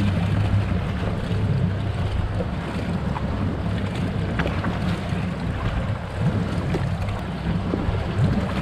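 Wind buffeting the microphone over small waves lapping against the fiberglass hull of a fishing boat: a steady rushing noise with a few faint clicks.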